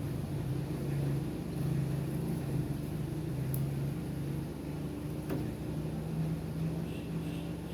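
Steady low hum of a running machine that wavers slightly in strength, with a few faint clicks.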